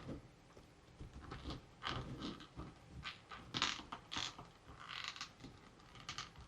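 Hands handling toys and their plastic packaging: irregular rustles, crinkles and small clicks, with a longer rustle about three and a half seconds in and another about five seconds in.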